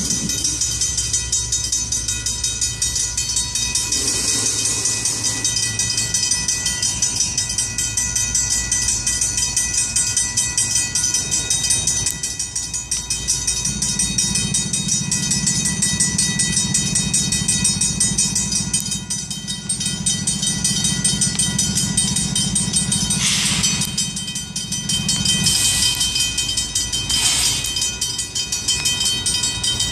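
Union Pacific freight train rolling slowly through a grade crossing. The crossing's Griswold mechanical bells ring steadily throughout. A diesel locomotive's low engine drone swells about halfway through and drops away near the end, and two short hissing bursts come near the end.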